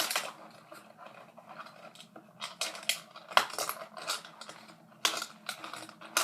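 Plastic blister packaging being handled and pulled at to free foam darts: irregular clicks, crinkles and rustles, with sharper clicks about three seconds in and again near the end.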